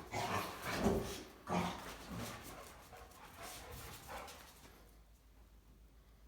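Rottweilers giving a string of short barks and yips, several in the first two seconds, then weaker calls that fade out about five seconds in.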